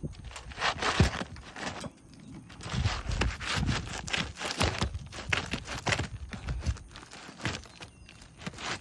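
Irregular knocks, taps and scrapes of hand work on an asphalt shingle roof, with one sharp knock about a second in.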